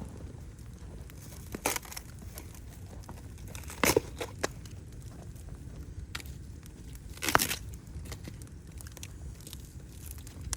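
Wood fire crackling over a low, steady rumble, with sharp pops scattered through it; the loudest come about four seconds in and again about seven and a half seconds in.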